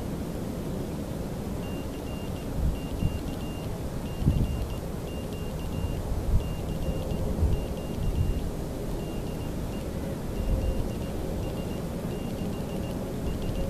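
Morse code tone, a high beep keyed in dots and dashes, calling CQ three times and then DE ZS6SVJ three times. Low gusts of wind buffet the microphone underneath.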